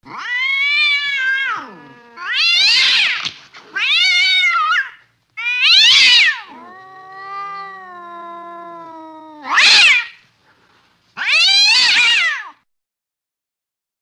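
A cat meowing and yowling: six loud meows, each rising and falling in pitch, with a quieter, lower call of about three seconds in the middle.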